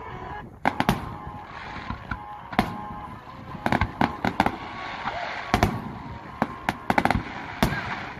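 Aerial fireworks shells bursting: an irregular run of sharp bangs, more than a dozen, several coming in quick pairs and clusters.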